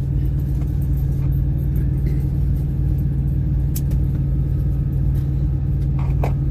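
Vehicle engine running with a steady low hum, holding an even pitch and level.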